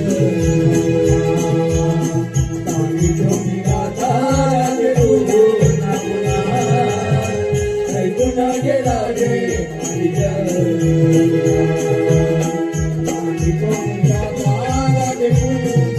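Folk-music accompaniment of a Konkan Naman performance: quick, dense drum strokes under long held tones and a wavering melody, with jingling bells or small cymbals.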